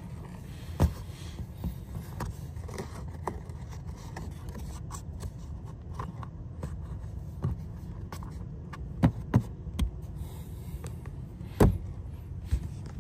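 Plastic retaining clips being pushed into the footwell trim panel under an Audi's glovebox: scattered sharp plastic clicks and knocks, the loudest just after nine seconds and at about eleven and a half seconds, over a steady low hum.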